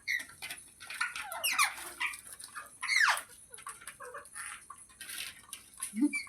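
Parrot chattering and squawking: a run of short chirps and clicks, with two loud calls that sweep sharply down in pitch, about one and a half and three seconds in.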